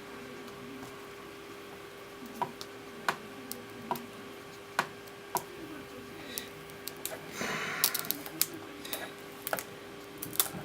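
Small irregular clicks and scratches of a fingernail picking tape off a laptop's display cable connector, with a short rustle about seven and a half seconds in.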